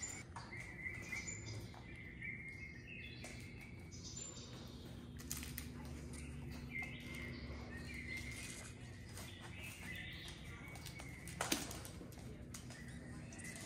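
A cat wand toy's purple feather-and-ribbon lure swishing and fluttering as it is flicked and dragged across the floor, with faint high chirping tones coming and going. Two sharp taps come close together late on.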